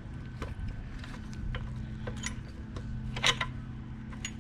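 Scattered light metallic clicks and taps as bolts and parts are worked into a floor jack's frame during reassembly, with a louder clatter about three seconds in, over a steady low hum.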